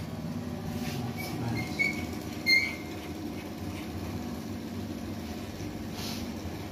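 Corded electric hair clipper running with a steady buzz while it cuts hair. A few short high squeaks come between about one and two and a half seconds in, the last of them the loudest moment.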